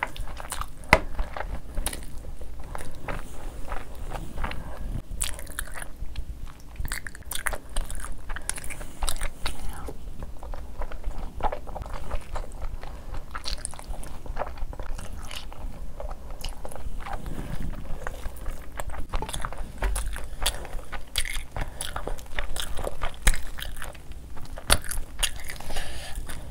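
Close-miked wet chewing and mouth sounds of someone eating rice and curry by hand, with irregular clicks and squelches from fingers mixing food on the plate. Near the end, naan being torn.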